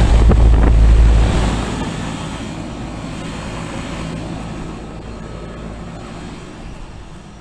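Outdoor heat pump/air-conditioner condenser unit running: fan air rushing over the microphone over a steady low electrical hum. The rush is loudest in the first second or so, then eases off.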